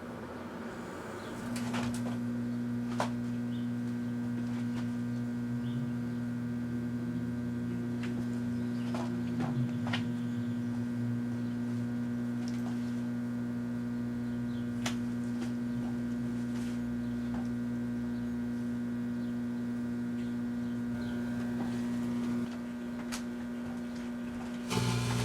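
1984 Kenmore microwave oven running with a steady electrical hum that starts about a second and a half in. Scattered faint sharp ticks and crackles sound over it while Morning Glory sparklers burn inside.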